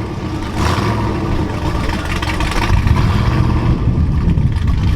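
A truck's engine revving hard as it powers through deep flood water on a road, with the water churning around it.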